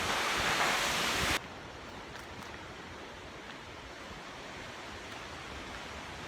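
Steady rush of a waterfall's falling water. About a second and a half in it cuts abruptly to a quieter, duller rush.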